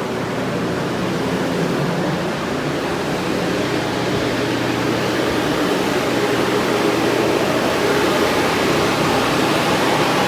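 Many drying fans and a large dehumidifier running together in flood-damaged rooms: a loud, steady rush of air with a low hum, growing a little louder toward the end.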